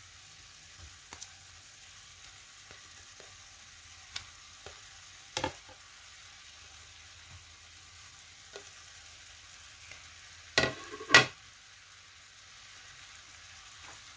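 Onion-tomato masala sizzling steadily in a frying pan as pieces of fried egg are laid into it. A few light knocks break in, the loudest two close together about eleven seconds in.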